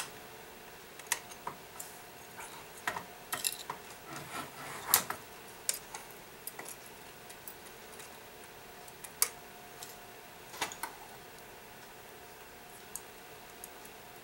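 Light, irregular metallic clicks and taps from handling and adjusting the chime hammers of a brass grandfather clock movement with fingers and a small tool.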